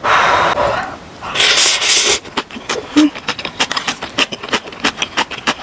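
Ramen noodles slurped up in two long pulls, then chewed with many quick small mouth clicks and smacks.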